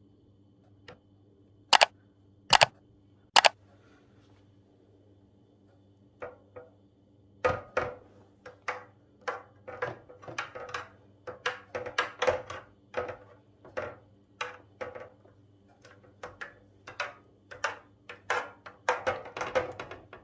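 Three sharp knocks, then a run of short scraping strokes, roughly two a second and closer together near the end, as a spatula spreads thick milk pudding across an aluminium baking tray.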